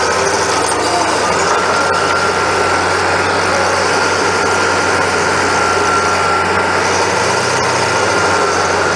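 Bobcat skid-steer loader's engine running steadily while its bucket pushes into a heap of soil and tree roots.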